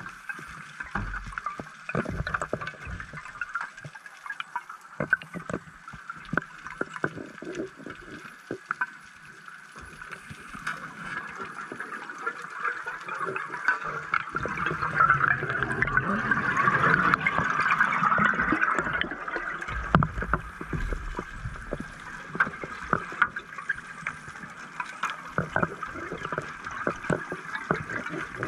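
Underwater ambience heard through a diver's camera: a steady hiss with many scattered sharp clicks, and about halfway through a swelling gush of a scuba diver's exhaled bubbles that lasts several seconds and then fades.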